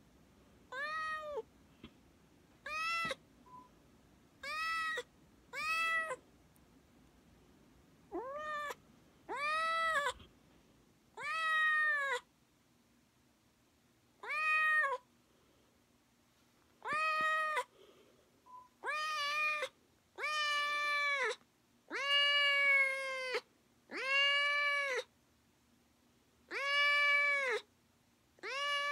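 Kitten meowing over and over: about fifteen high meows, each rising and then falling slightly in pitch. From about twenty seconds in the meows grow longer and come closer together.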